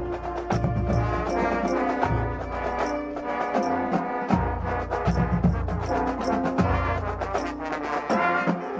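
High school marching band playing: brass holding loud chords over low bass notes, with sharp percussion strokes keeping time.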